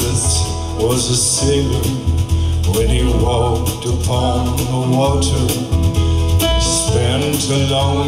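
A recorded song with singing, played through a Frazier Super Texan horn loudspeaker with an Atlas compression driver on a wooden horn. It is picked up by a camera's built-in microphones, which flatten the dynamics and lose the low bass.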